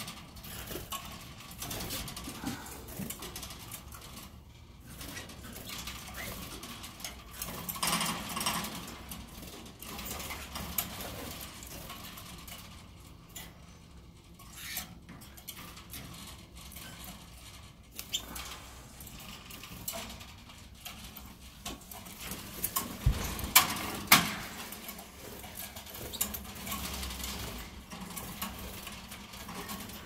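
Caged canaries moving about in wire breeding cages: wings fluttering and feet pattering. Two sharp knocks come about a second apart, roughly three-quarters of the way through.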